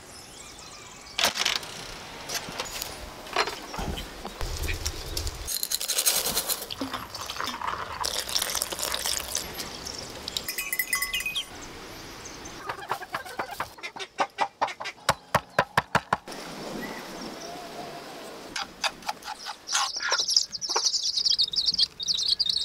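A changing string of farmyard sounds with chickens clucking, ending in the high, fluttering peeping of a young chick.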